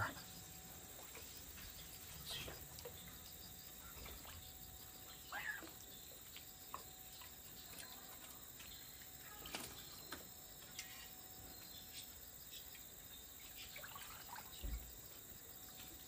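Faint, quiet outdoor pond ambience: a low steady background hiss with a thin constant tone, broken by a few soft scattered chirps and ticks, including one short falling chirp about five seconds in.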